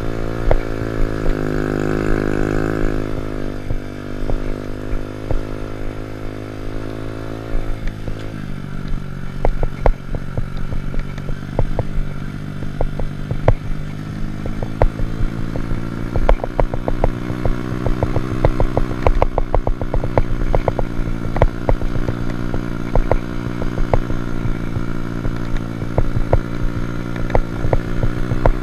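Honda Monkey Z50's small single-cylinder four-stroke engine running steadily; its pitch drops suddenly about eight seconds in and then slowly climbs again. Frequent sharp clicks and knocks sound over the engine in the second part.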